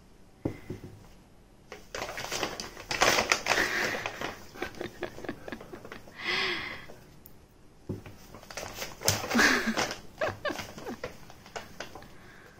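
Kraft paper bag crackling and rustling as a cat thrashes inside it, kicking and batting at a ball. Two busy bouts of rapid crackles, starting about two seconds in and again about eight seconds in.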